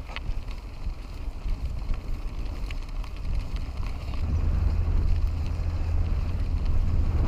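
Wind buffeting a helmet-mounted action camera's microphone as a mountain bike is ridden, with a low rumble and scattered small clicks and rattles from the bike. The rumble gets louder about four seconds in.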